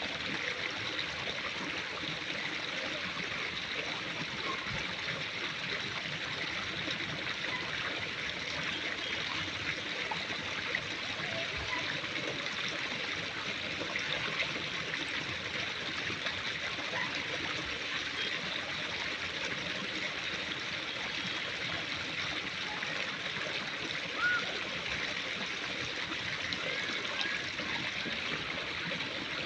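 Steady rushing noise of flowing water, even throughout, with one brief sharp sound about 24 seconds in.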